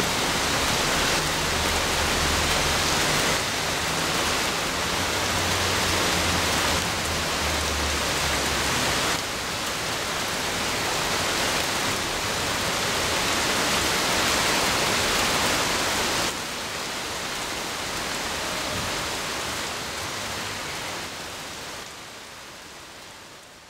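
Heavy rain pouring down in a dense, steady hiss, with a low rumble under it for the first several seconds. The rain drops in level twice and fades away near the end.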